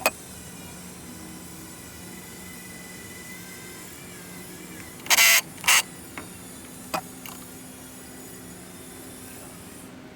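Two short bursts of an impact wrench about five seconds in, working the flywheel of a 1996 Force 120 outboard loose, followed by a few light metal clicks.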